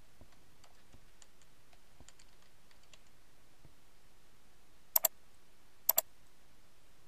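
Computer keyboard typing in light, irregular taps, then two much louder sharp clicks about a second apart near the end.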